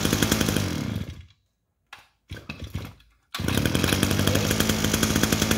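Mitsubishi T170 two-stroke brush-cutter engine idling, then dying out about a second in. After a pause broken by a couple of short noises, it is pull-started again and idles steadily.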